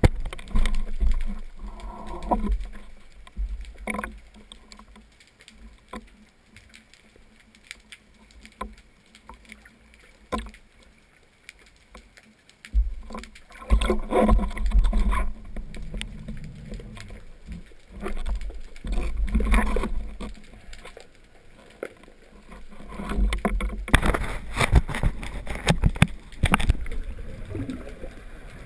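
Underwater water noise: bubbles and churning water come in uneven bursts with low rumble and scattered sharp clicks, as a freediver moves through the water, with quieter stretches between.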